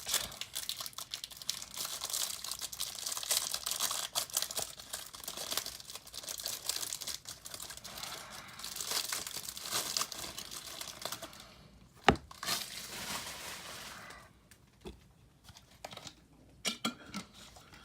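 Packaging of a Topps baseball card hanger box crinkling and tearing as it is opened by hand. There is dense crackling for most of the first eleven seconds, a single sharp snap about twelve seconds in, then lighter rustling.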